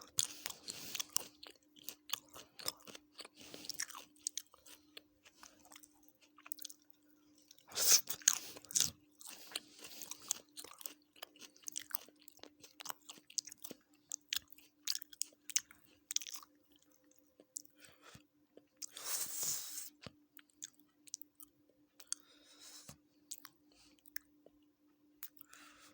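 Close-miked chewing of chicken biryani: wet mouth clicks and smacking, with louder crunchy bites about eight and nineteen seconds in. A steady low hum runs underneath.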